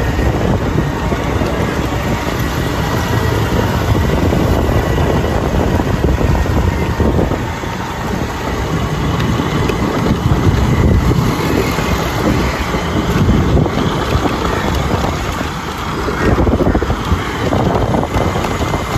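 A motorcycle engine running while riding, with wind rushing over the microphone: a loud, steady rumble.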